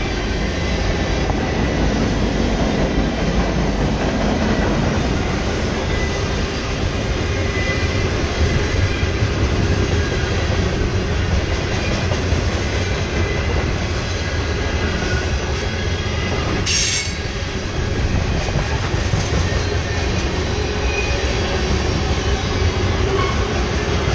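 Freight train cars rolling past close by: a steady rumble and clatter of steel wheels on rail, with faint high wheel-squeal tones at times. There is a brief sharp high sound and a short dip in level about two-thirds of the way through.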